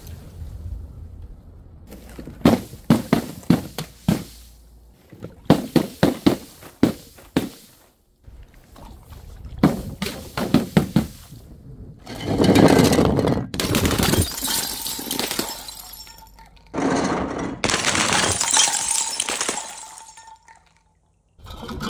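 Glass bottles breaking and being crushed: three quick clusters of sharp cracks and clinks in the first half, then longer loud stretches of crashing, crunching glass in the second half.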